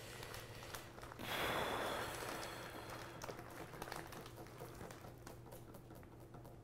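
Plastic bag of salad greens crinkling as the greens are shaken out onto a plate. There is one loud rustle about a second in, then softer rustles and small clicks.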